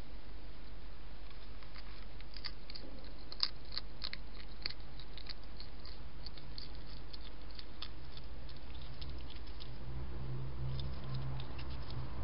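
European hedgehog crunching food, a run of quick, irregular sharp clicks that thin out after about nine seconds.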